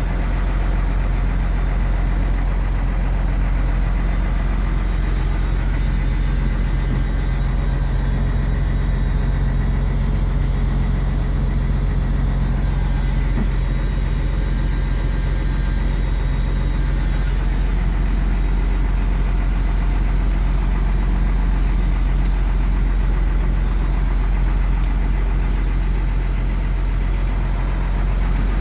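Ford F-700's 6.6-litre turbo diesel idling steadily after a long time sitting unstarted.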